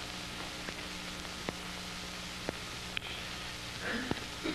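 Steady hiss and faint hum of an old lecture-film soundtrack, with a few faint, scattered clicks.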